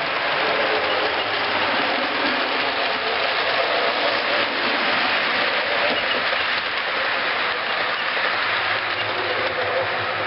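HO-scale model train with Bachmann passenger cars running along the track: a steady running noise of wheels on rail and the locomotive's motor.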